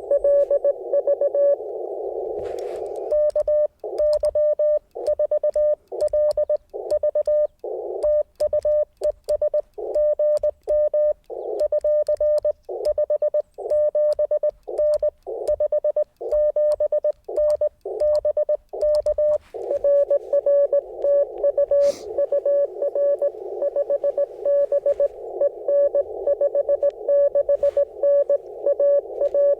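Morse code (CW) from an Icom IC-705 radio: a single steady tone near 600 Hz keyed on and off in quick dots and dashes over band hiss. From about 3 s to 19 s the hiss drops out in the gaps between tones, and it runs continuously again near the end.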